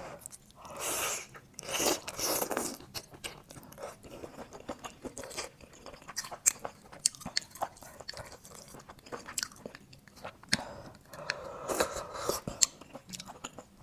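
Close-up wet chewing of grilled oysters in garlic sauce, with many sharp little mouth clicks. There are longer wet sucking sounds about a second in and again near the end, as an oyster and then a shell's juices are slurped.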